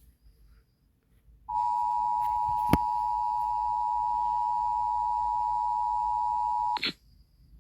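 Emergency Alert System attention signal: a steady two-tone alarm (853 and 960 Hz together) that starts about a second and a half in and cuts off about five seconds later, announcing a flash flood warning. A single short click sounds just after the tone begins.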